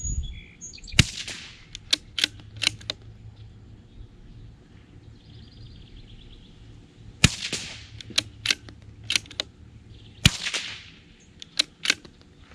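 Three .22 LR shots from a CZ 457 Pro Varmint bolt-action rifle, about a second in, about seven seconds in and about ten seconds in. Each shot is followed by a quick run of sharp clicks as the bolt is worked to eject the case and chamber the next round.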